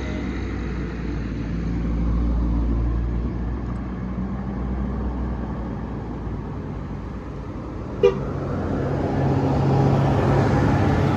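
Large bus running with its horn sounding; a short, sharp blast about eight seconds in is the loudest moment, after which the bus grows louder.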